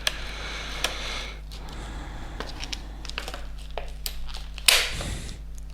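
Plastic packaging crinkling and crackling as it is cut open along the side with a pocket knife. There are scattered small clicks and one louder crackle nearly five seconds in.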